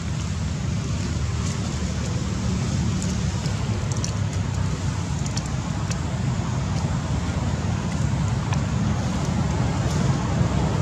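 Steady low outdoor rumble with a few faint crackles of dry leaves scattered through it.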